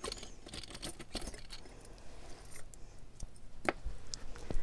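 Metal costume-jewelry brooches clicking and clinking as they are handled, a run of small light clicks with a sharper one a little before the end.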